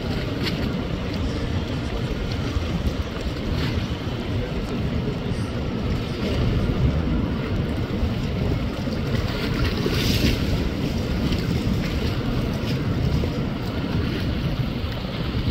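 Wind buffeting the microphone: a steady, gusting low rumble with no clear tone, with a brief hiss about ten seconds in.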